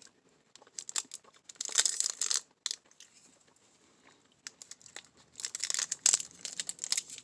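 Plastic candy wrapper crinkling and tearing in crackly bursts, once about two seconds in and again from about four and a half seconds on, as the coconut candy is unwrapped.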